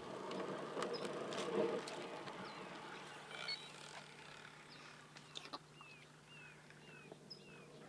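Birds chirping: short high calls, then a run of quick falling chirps about two a second in the second half, over faint outdoor noise.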